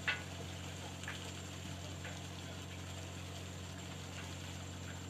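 Ship's deck machinery running with a steady low hum, a sharp metallic click right at the start and fainter ticks about one and two seconds in.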